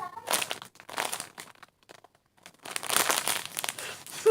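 Crinkling plastic as squishy toys in their plastic wrappers are handled: two stretches of crackly rustling with a short pause between them.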